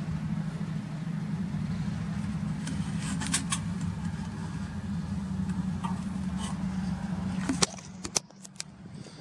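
A steady low machine drone, engine-like, that cuts off abruptly near the end. A few sharp clicks fall during it and just after it stops.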